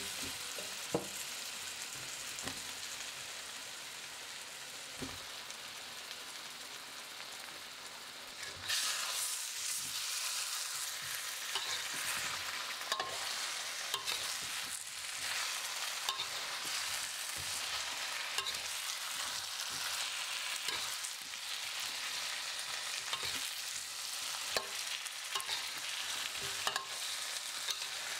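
Eggplant wedges frying and sizzling in oil and spice paste in a stainless steel wok, with the scrapes and clacks of stirring. The sizzle turns suddenly louder about nine seconds in.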